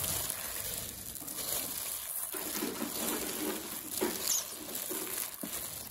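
A hand in a thin plastic glove mixing and tossing chopped chives in a stainless steel bowl: the plastic of the glove and the chives rubbing against each other and against the bowl.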